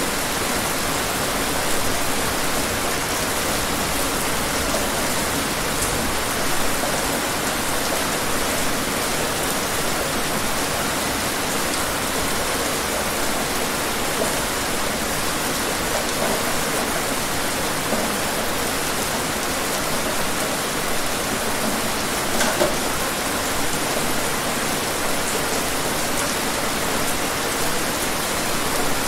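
Steady rain falling, an even hiss with now and then a slightly louder spatter of drops.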